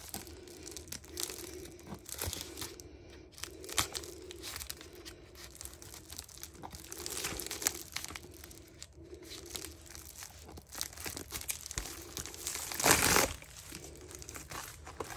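Scissors cutting through a white padded poly mailer, with small snips and the plastic crinkling as it is handled and turned. Near the end, a louder burst of rustling as the cut-off strip comes away.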